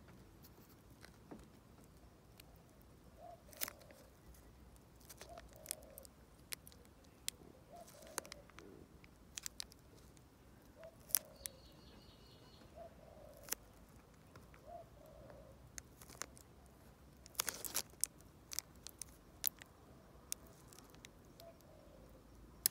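Faint, scattered small clicks and plastic crinkles from handling a brass dimple lock cylinder wrapped in a plastic bag while a thin shim is worked into its core, with a brief louder cluster of clicks and rustling about two-thirds of the way through.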